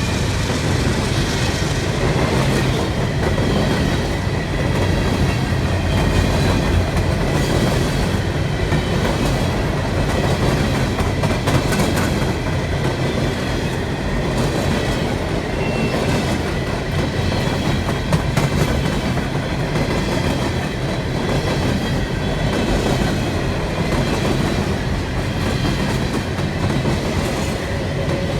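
Long string of empty coal hopper cars rolling past on a CSX freight train: a steady heavy rumble with the wheels clacking over the rail joints.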